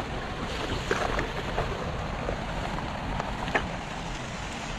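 Shallow water running along a narrow muddy ditch: a steady rushing trickle with a few small splashes or drips scattered through it.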